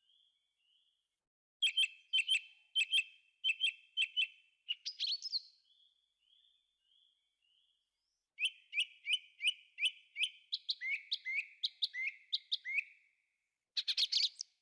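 Thrush singing: two loud phrases of short, sharp notes, each note repeated several times in quick succession, with softer, quieter notes in the pauses between and a brief harsh, scratchy burst near the end.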